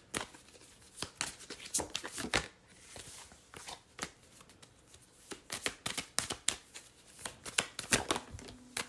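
Tarot cards being shuffled and handled, a run of irregular papery snaps and flicks.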